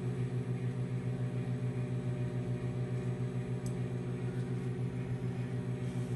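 Hamilton Beach microwave oven running while it heats food: a steady low electrical hum with a slight, fast, even pulsing.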